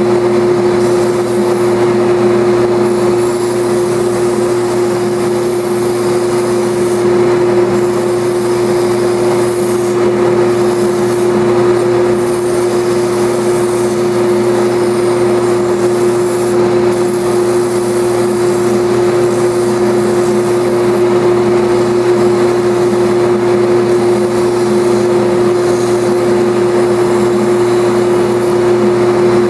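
JET belt and disc sander running steadily with a strong motor hum, along with the dust-collection exhaust system, while a balsa wood dragster body is pressed against the sanding belt. The hiss of the sanding comes and goes as the piece is worked.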